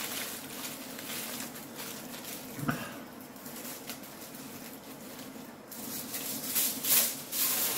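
Aluminium foil crinkling and rustling as a crumpled sheet is picked at and pulled apart by hand, with one short knock about two and a half seconds in and louder crackling near the end.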